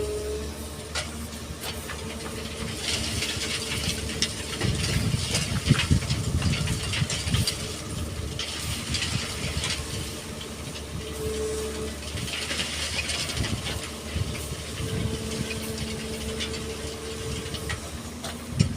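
Excavator's diesel engine running under load with a whine that comes and goes, and twice a longer stretch of rattling and scraping as sand and stones are scooped and dumped.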